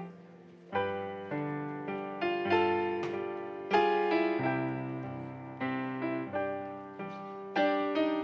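Piano playing slow chords and melody notes, each struck and left to fade, after a short quiet gap at the start.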